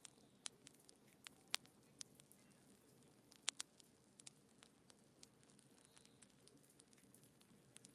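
Wood fire in a fireplace crackling: irregular sharp pops and snaps over a faint low hiss. The loudest two snaps come about a second and a half and three and a half seconds in, and the pops thin out later.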